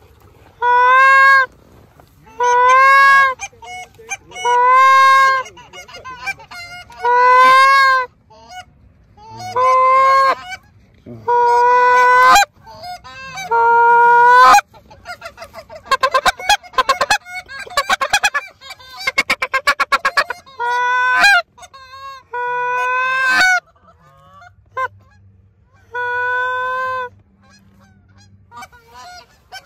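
Goose calls blown at close range by hunters calling to geese overhead: long, even honks about every two seconds, with a run of rapid short clucks in the middle.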